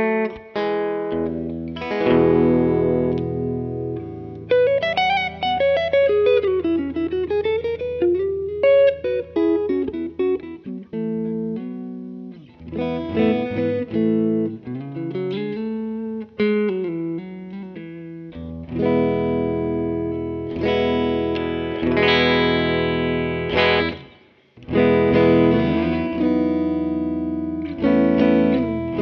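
Telecaster with Busch Arctic Wolf Alnico 5 bridge and neck pickups, played through a Muleskinner amp. Ringing chords open, then a single-note lead line with string bends through the middle, and full chords again after a short break near the end.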